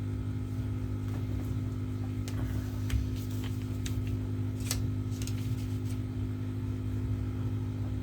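Steady low hum in the background, with scattered small clicks and crackles as the adhesive pull-tabs under a tablet battery are stretched and pulled. The sharpest crackle comes just before the middle.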